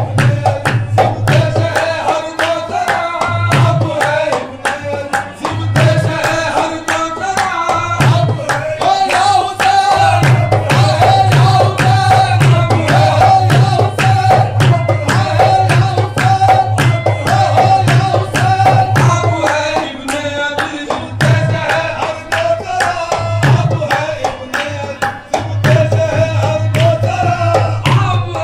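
Qawwali performance: male voices sing a devotional kalam to a harmonium, with a hand drum and steady rhythmic hand-clapping keeping the beat.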